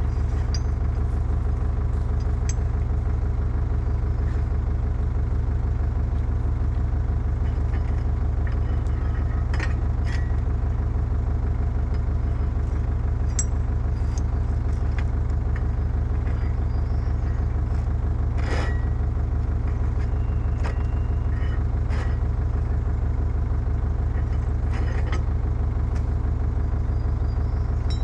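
Excavator diesel engine running steadily at idle, with a few short metallic knocks over it.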